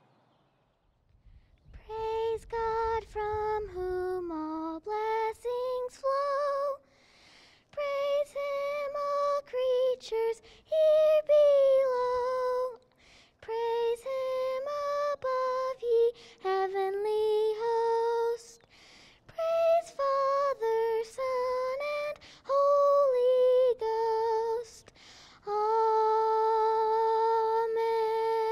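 A single slow solo melody line, one sustained note at a time in short phrases, ending on a long held note.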